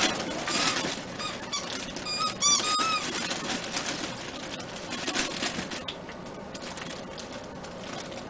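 Maltese puppies giving short, high-pitched squeaky whines, a quick run of them about two to three seconds in, amid light tapping and scratching of paws.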